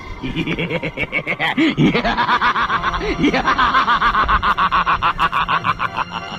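A man's long, exaggerated cackling laugh, played as a ghost's evil laugh: it starts with a few drawn-out sounds, then turns into a quick run of 'ha-ha-ha' pulses for about four seconds.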